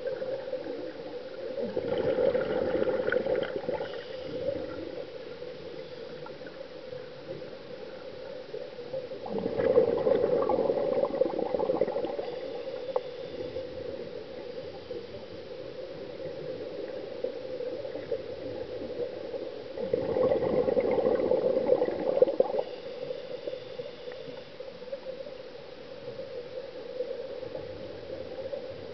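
Scuba diver exhaling through a regulator: three bursts of bubbling, each a few seconds long and about ten seconds apart, heard underwater over a steady hum.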